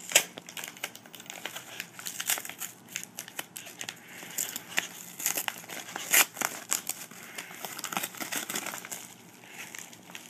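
Packaging being handled and unwrapped by hand, crinkling and crackling in irregular bursts, with occasional sharper snaps.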